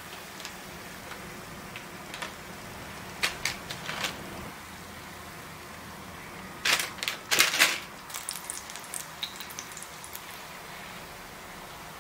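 Oil sizzling steadily as potato balls shallow-fry in a pan, with clicks and scrapes of a slotted spatula against the pan as they are turned and lifted out, loudest about three to four seconds in and again around seven seconds.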